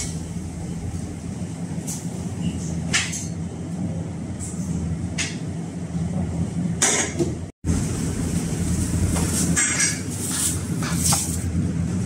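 Restaurant kitchen ambience: a steady low mechanical hum with several short clinks and scrapes of metal, as a steel ladle works in a steel serving tray of rice.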